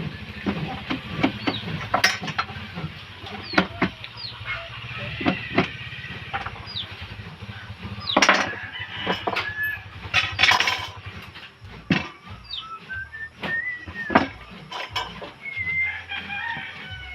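Chickens clucking and calling, over irregular sharp knocks and taps scattered throughout, with a low steady hum underneath.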